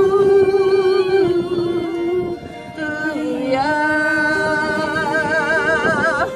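Live song: women's voices holding long sung notes with vibrato, moving to a new note about three seconds in, accompanied by acoustic guitar and violin.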